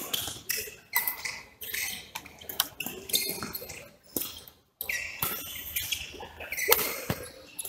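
Badminton hall sounds: rackets striking shuttlecocks in sharp clicks and sports shoes giving short high squeaks on the court mats, scattered irregularly, with the sound cutting out briefly just under five seconds in.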